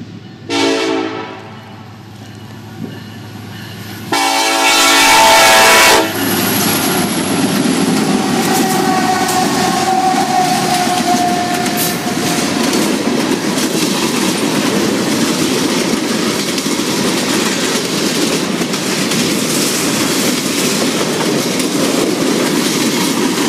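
Diesel freight locomotive horn: a short blast, then a longer, louder blast about four seconds in. The freight train then rolls past with a steady rumble and clatter of wheels on the rails.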